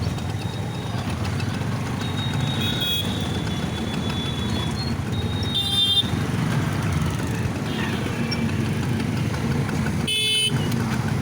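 Steady low rumble of a passing train, with a thin high whine for a few seconds and two short horn honks, one about halfway through and one near the end.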